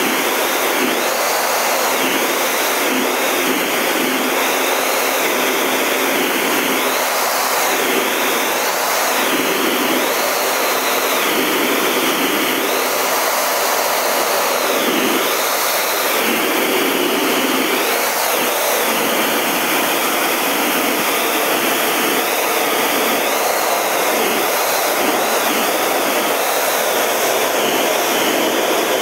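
Steady cockpit noise of a Canadair CT-114 Tutor jet in formation flight: turbojet and airflow rushing, with a high whine that keeps wavering down and back up.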